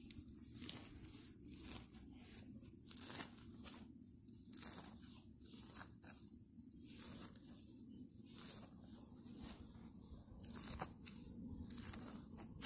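Gloved hands tearing and rummaging through grass roots and soil in short, irregular rustling, crunching strokes, digging out a metal detector target from the turf. Faint overall.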